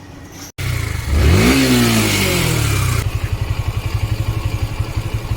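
Yamaha V3 150 motorcycle engine blipped once, the pitch rising and then falling back, before settling into a steady idle with a rapid, even pulsing.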